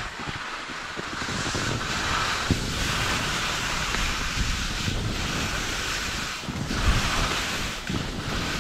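Wind rushing across the microphone with the hiss of skis carving snow, swelling and dropping every second or two with the turns.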